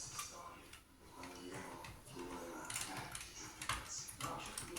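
Sharp clicks and light knocks of computer hardware being handled: small plastic and metal parts tapping together, loudest in the second half.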